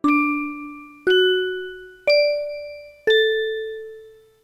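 Four-note chime jingle: four struck, bell-like tones about a second apart, each ringing out and fading, rising in pitch over the first three notes and stepping down on the last.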